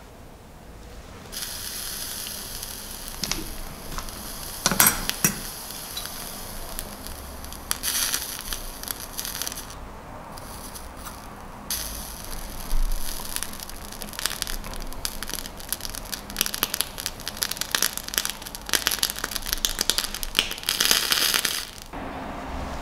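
A round slice of food sizzling and crackling as it is pressed with tweezers onto the heated coils of a rebuildable vape atomizer on a DNA250C box mod. The crackling starts about a second in, pauses briefly around ten seconds in, and stops shortly before the end.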